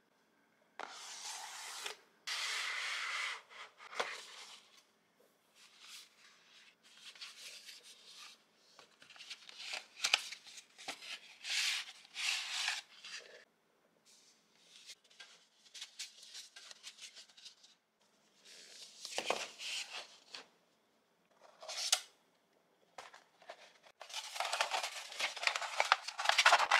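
Stiff cardboard and glossy paper being handled: a red-packet gift box and its paper red envelopes rustle, slide and scrape in separate bursts of a second or two. A large paper decoration crinkles loudest near the end.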